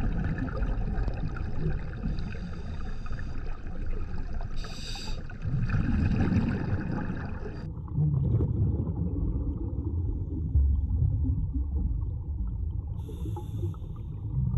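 Underwater sound of a scuba dive in a flooded cave: low rumbling water noise with the diver's breathing and bubbling. Just under halfway through the sound changes abruptly and turns duller.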